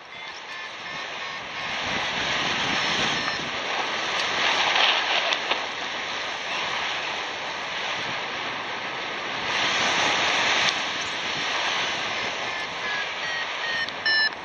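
Airflow rushing over the microphone of a paraglider in flight, swelling and easing in gusts. Faint, short, evenly spaced beeps from a variometer sound through it.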